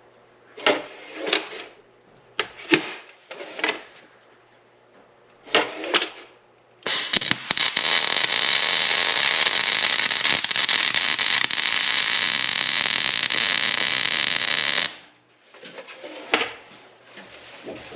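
A few short scrapes and knocks, then about eight seconds of steady electric welding arc crackle and hiss, starting about seven seconds in and cutting off abruptly: a nut being welded onto a broken-off stud so the stud can be spun out.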